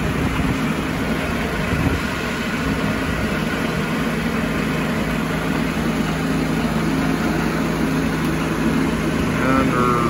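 Gas engine of a Mighty Mite portable circular sawmill, a small Volkswagen engine retrofitted to the mill, running steadily.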